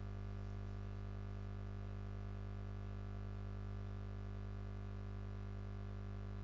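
A steady, unchanging low electrical hum with a faint buzz on top.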